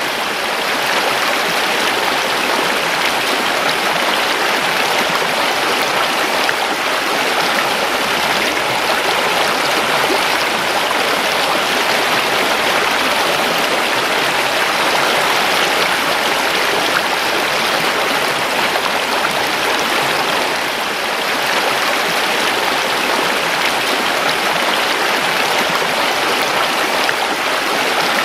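Creek water rushing and babbling steadily over stones, with a slight dip in level about three-quarters of the way through.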